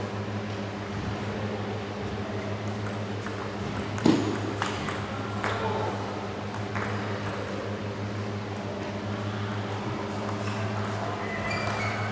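Table tennis balls ticking on tables and bats in a large hall, scattered light clicks over a steady low hum, with one louder thump about four seconds in.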